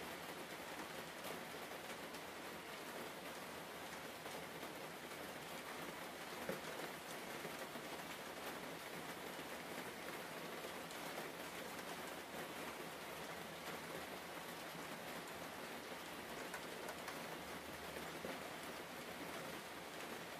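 Steady rain patter, an even hiss flecked with fine drops, with one small click about six and a half seconds in.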